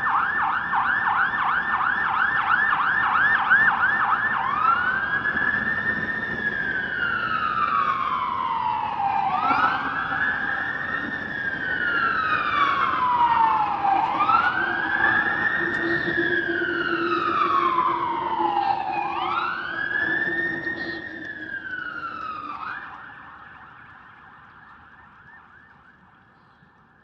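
Electronic emergency-vehicle siren passing through city streets with echo off the buildings: a fast yelp for the first few seconds, then a slow wail rising and falling four times, switching back to the yelp near the end as it fades into the distance.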